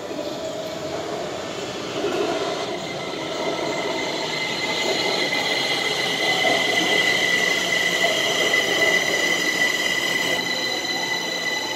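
Kaohsiung MRT train pulling into the station, its running rumble growing louder from about two seconds in. From about four seconds in a steady high squeal builds over it as the train slows along the platform.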